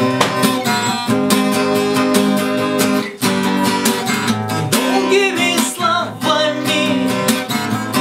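Acoustic guitar strummed in a steady rhythm of chords, with a man's singing voice coming in about five seconds in.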